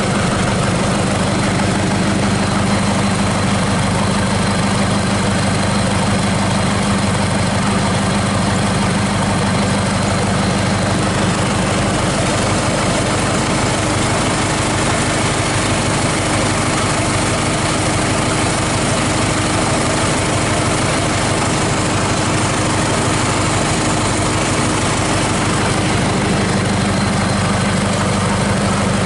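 Hyundai D4DD four-cylinder diesel engine idling steadily while test-run out of the vehicle.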